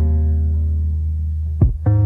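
Electronic music with a held deep bass note and deep kick-drum hits that drop sharply in pitch: one at the start, then two close together near the end.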